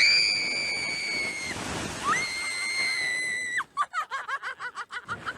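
A woman's siren-like screams on a slingshot ride: two long, high-pitched held screams, the second starting about two seconds in, over a rushing noise. They give way near the end to a run of short, rapid cries.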